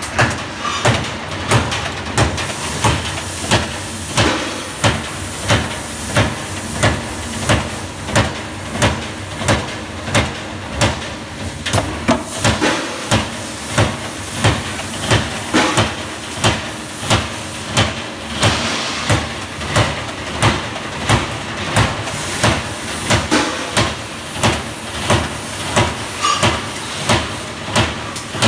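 CNC turret punch press punching a steel sheet into perforated mesh: heavy punch strokes at a steady rhythm of roughly one to two a second, over a continuous machine hiss.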